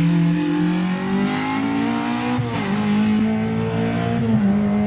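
Slalom race car's engine revving hard: the pitch climbs for about two seconds, drops sharply, holds steady, then falls again near the end.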